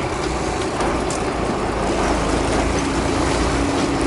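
A fishing boat's engine running steadily under wind and water noise, with a steady hum coming in about halfway through.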